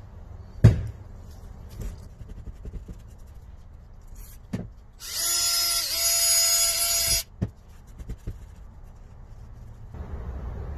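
A power drill spinning a wire brush against the aluminium cylinder head of a Toyota 2TZ-FE engine for about two seconds, its pitch dipping briefly as it bears down, to clean the head before it is checked for cracks. Earlier comes one sharp knock, followed by a few light clicks of tools being handled.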